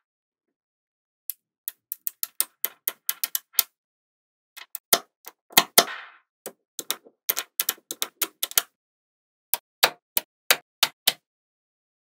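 Small magnetic balls clicking sharply as they snap onto one another, in quick runs of clicks with short pauses between. There is a brief rattle about halfway through.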